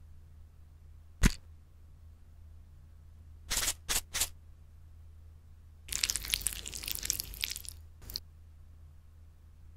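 Salt and pepper grinders grinding: three short grinds a little after three seconds in, then a longer crackly grind of about a second and a half. A single sharp click about a second in and a short click near the end.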